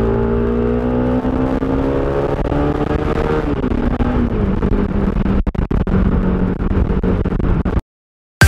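Motorcycle engine accelerating with a rising pitch, dropping at an upshift about three and a half seconds in, then running steadily at cruising speed. The sound cuts off suddenly near the end.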